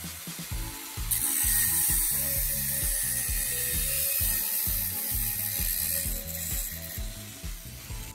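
Angle grinder cutting disc biting into a flattened aluminium tube held in a vise. A harsh, hissing cut starts about a second in and runs steadily until it stops near the end, over the grinder motor's steady whine.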